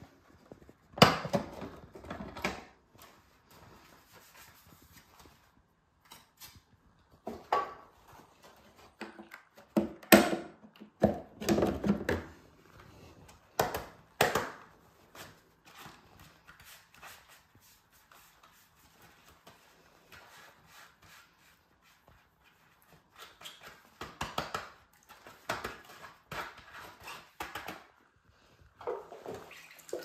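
Plastic parts of a Bosch BGS21X320 bagless vacuum cleaner handled with rubber-gloved hands: sharp clicks and knocks in a few clusters, with quiet stretches between. Water splashes in a bucket near the end.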